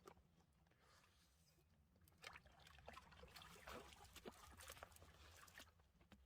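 Faint water splashing and trickling in small, irregular bursts, starting about two seconds in, as a landed trout is held in the wet landing net.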